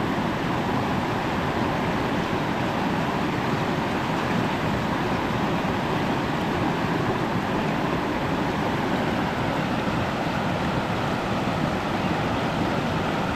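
Shallow rocky river rapids rushing steadily, a constant wash of water pouring over and around stones.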